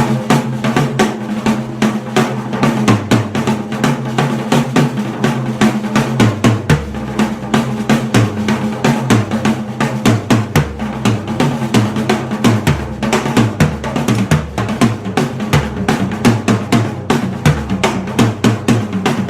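DiG Drums Crestone Series ash stave drum kit (12", 13" and 16" toms, 22" bass drum) with a DiG Custom #3 snare, played with rapid continuous snare and tom strokes and cymbal wash. Deep bass drum hits come in about six seconds in and recur through the rest. Heard from the drummer's seat.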